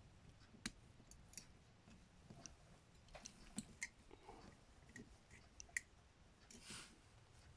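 Faint, irregular clicks and taps of small metal carburetor parts being handled and fitted together by hand, with a brief soft rustle near the end.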